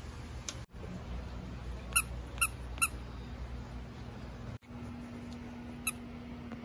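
Squeaker inside a plush dog toy squeezed three times in quick succession, then once more a few seconds later: short, high squeaks.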